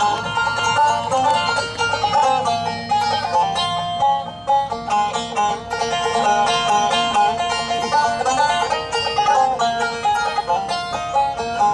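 Bluegrass band playing an instrumental intro led by a resonator banjo picking a fast, steady run of notes.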